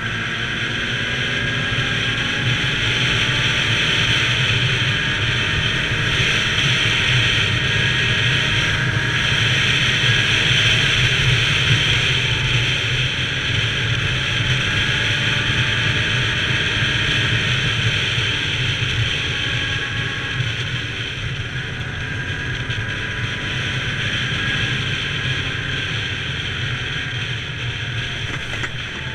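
ATV engine running at cruising speed, mixed with tyre noise on a gravel road and wind rush. The engine note drifts slightly up and down.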